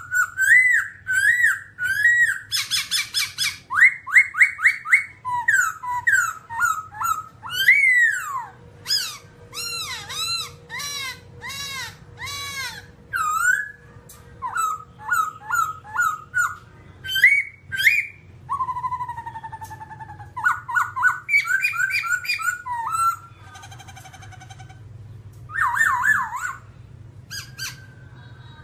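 Black-throated laughingthrush singing a long, varied song of loud whistled phrases: quick notes sweeping up and down, mixed with sharp high chirps, with short breaks between runs.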